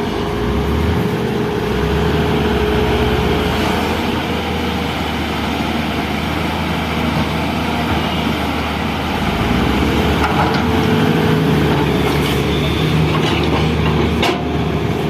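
Excavator's diesel engine running steadily under work, with a couple of sharp knocks near the end.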